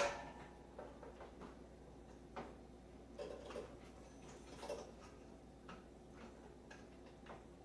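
Faint, scattered clicks and taps of a microwave's door-latch parts being handled while the latch spring is refitted.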